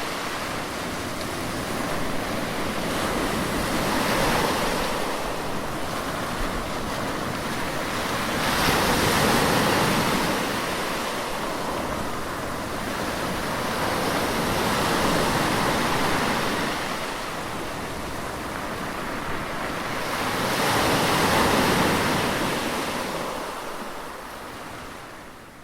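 Sea waves surging in and washing back, swelling roughly every five to six seconds, then fading out near the end.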